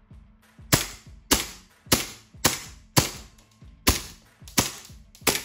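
Silver WE 1911 gas blowback airsoft pistol, charged with gas, firing eight shots at a steady pace about two a second, each a sharp crack.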